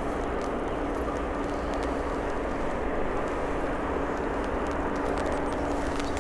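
Steady jet aircraft noise at an airport: an even rush with a low steady hum held throughout.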